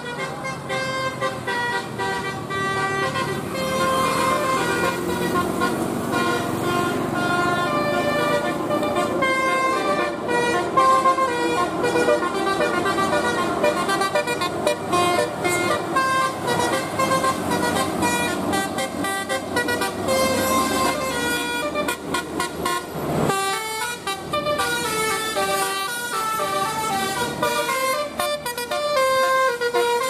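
Telolet multi-tone musical horns on passing trucks and a coach, sounded continuously in quick runs of short stepped notes over the engines of passing vehicles. The horns break off briefly about two-thirds of the way through.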